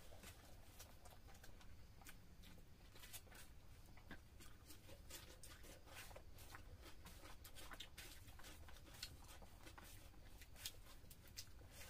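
Faint eating sounds: scattered small clicks and wet smacks of fingers mixing rice and curry on plates and of chewing, over a low steady hum.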